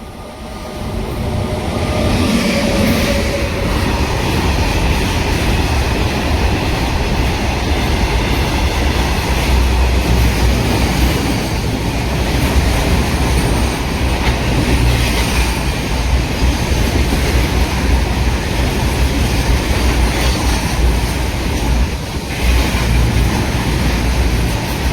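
Train running past at speed: a loud, steady rumble and clatter of wheels on rail that builds over the first two seconds, with a few faint high wheel squeals around the middle.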